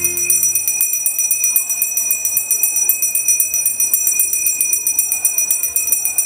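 A bell ringing under a rapid, even stream of strikes, its high tones held steady. The deeper hum fades away within the first second.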